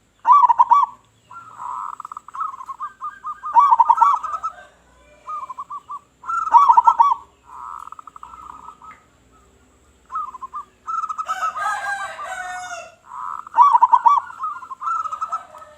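Zebra doves (perkutut) cooing, several rhythmic phrases in a row, each a fast stuttering trill that rolls into louder bubbling coos. Between about 11 and 13 seconds in, a harsher call with higher notes overlaps the cooing.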